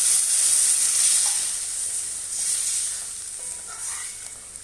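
Hot masala sizzling in a kadhai just after a glass of water is poured in, the sizzle dying down over the first few seconds, while a metal spoon stirs the watery mixture.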